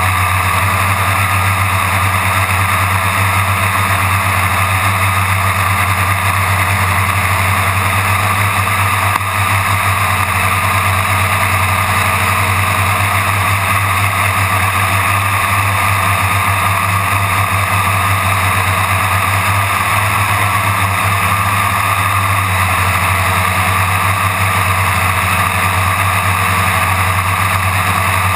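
Quadcopter's electric motors and propellers buzzing steadily in flight, heard close up from the onboard camera.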